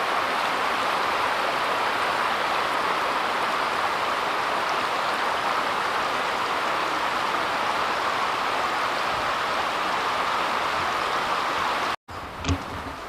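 Steady rush of flowing stream water. It cuts off suddenly about twelve seconds in and is followed by a single low thump.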